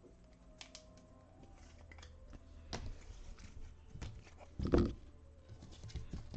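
Faint, scattered clicks and handling noises, with one louder knock about three-quarters of the way through, over a low hum.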